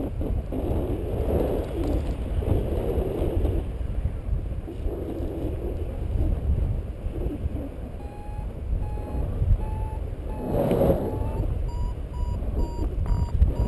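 Wind buffeting the microphone in flight, a steady low rumble with one stronger gust. From about eight seconds in, a paragliding variometer beeps about twice a second, its pitch creeping upward: the climb tone of a glider rising in a thermal.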